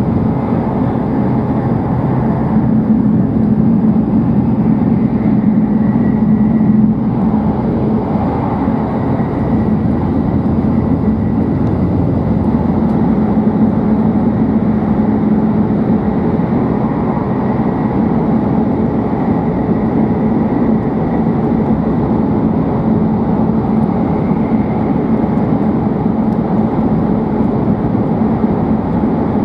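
Steady running noise inside the passenger cabin of a W7 series Shinkansen train at speed: a low, even rumble of the wheels and air, with a faint high tone that comes and goes.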